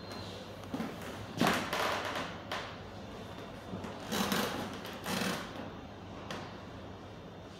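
A few brief knocks and thuds over a steady low hum, the loudest about a second and a half in and again around four and five seconds in.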